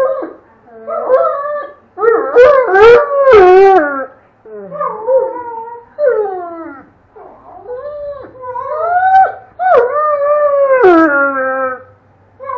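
Doberman howling and 'talking': a string of drawn-out, wavering calls that slide up and down in pitch, with short breaks between them, loudest about two to four seconds in and again around nine to eleven seconds.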